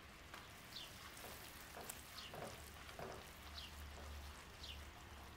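Sugar syrup bubbling faintly in a non-stick frying pan as a spatula stirs it in several soft strokes. It is boiling down on low heat to thicken for sesame brittle.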